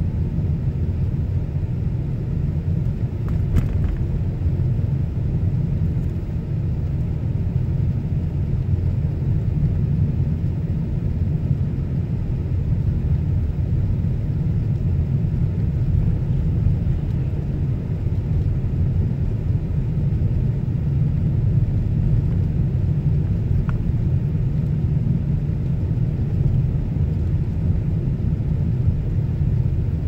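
A car driving on a snow-covered road, heard from inside the cabin: a steady low rumble of engine and tyre noise.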